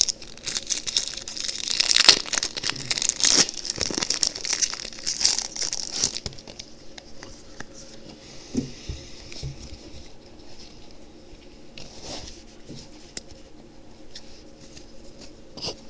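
A foil Pokémon TCG booster pack being torn open and crinkled, loudest in the first six seconds, then quieter rustling and handling of the wrapper and cards.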